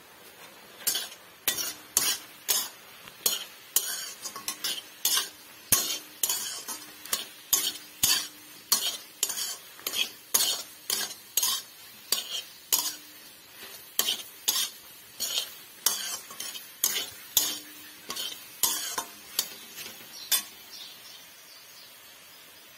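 A metal spoon scraping and knocking against a metal wok, about one or two strokes a second, as jujube (borai) fruit is stirred while cooking for pickle. The stirring stops about 20 seconds in.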